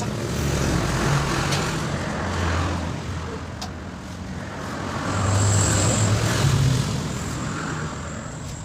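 Road traffic: motor vehicle engines running, swelling twice as vehicles pass, the louder one about five seconds in.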